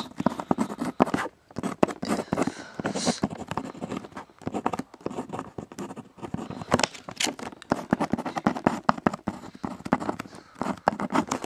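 Mechanical pencil lead scratching across paper in quick, irregular strokes as a phrase is written out by hand.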